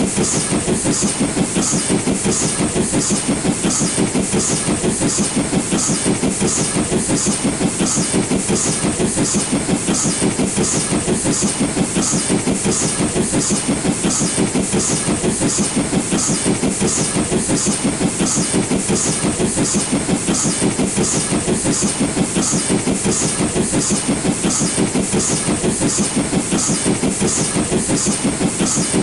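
LNER B12 4-6-0 steam locomotive, a two-cylinder engine, working hard up a gradient with a load behind it: a loud, steady, rapid chuffing exhaust beat with puffs of steam hiss.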